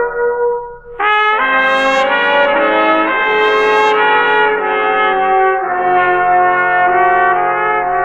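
Brass instrumental music led by trumpet, playing held chords, from a vinyl LP. The sound drops away just under a second in, then a new full brass chord comes in and is sustained, shifting to another chord about two-thirds of the way through.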